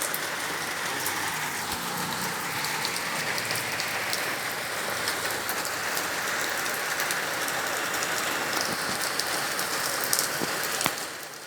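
Steady rain falling, an even hiss with scattered sharp drip and splash clicks; it drops in level briefly near the very end.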